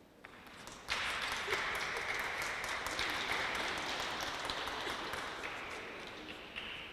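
Audience applauding after a choir piece ends: clapping swells in about a second in, holds, then dies away near the end.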